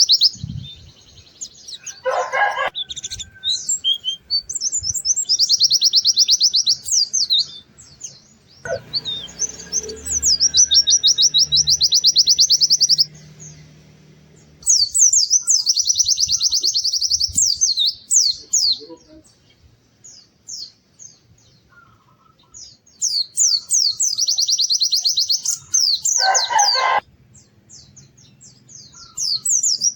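White-eye (pleci) singing: bursts of fast, high trilling song lasting about two seconds each, repeated with short pauses. A shorter, lower, harsher call cuts in twice, about two seconds in and again near the end.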